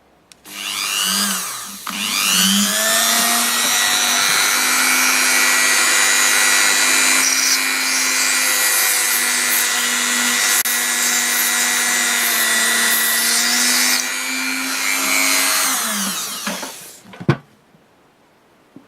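Small electric drill with a 0.8 mm bit, spinning up in a couple of short starts, then running steadily before winding down and stopping, with a click just after. It is drilling out the remaining part of a broken hinge screw.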